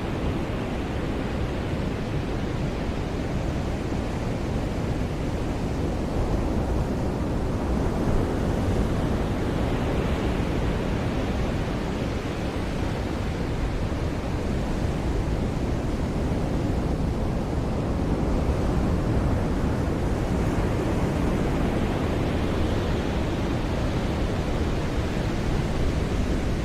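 Ocean surf washing onto a beach: a continuous rush of water noise that swells twice as waves break and roll in.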